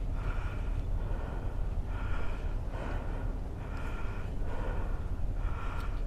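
A person breathing heavily while walking, each breath in and out coming about every two seconds, over a steady low rumble of wind on the microphone.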